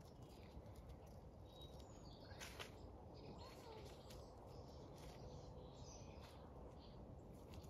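Near silence outdoors: a faint steady low rumble, with birds chirping faintly now and then and a few soft clicks.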